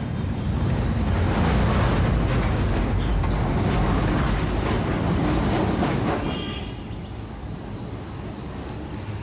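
Loud rumble of a passing vehicle, swelling over the first second or two and dying down about six seconds in.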